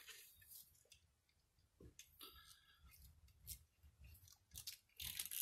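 Near silence with a few faint clicks and rubbing of hands pushing a rubber vacuum hose onto a small plastic nipple. A louder handling rustle starts near the end.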